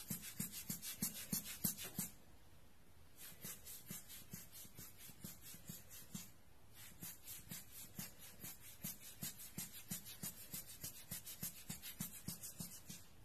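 Large Giottos Rocket rubber-bulb air blower squeezed rapidly by hand, about four puffs of air a second, each a short hiss with a soft squeeze thud. The puffing pauses briefly about two seconds in and again about six seconds in.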